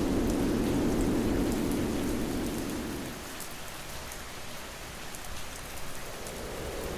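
Steady rain with scattered drop ticks; a low rumble under it fades away about three seconds in.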